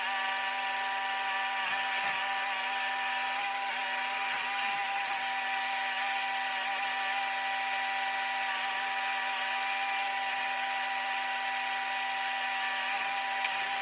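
A machine running with a steady, high-pitched whine at constant speed.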